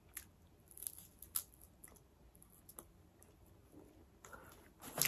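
Faint chewing of a marshmallow in a small sugar cone: scattered soft mouth clicks and crunches, with a brief louder rustle near the end.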